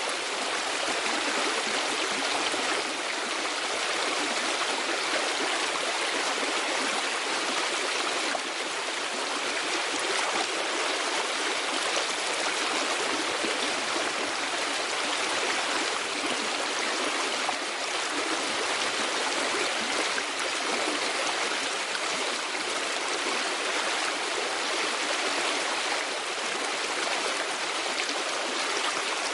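Steady rush of running water, as of a stream, unchanging throughout.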